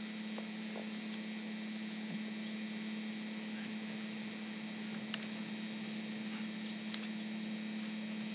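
A steady low hum with an even hiss beneath it and no other clear sound: the old camcorder's own recording noise.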